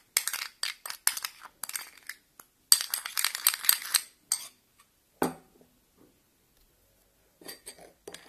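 Metal spoon stirring a thick sugar, yogurt and honey paste in a small glass bowl, clinking quickly against the glass and stopping after about four seconds. About five seconds in comes a single knock, and a few faint clinks follow near the end.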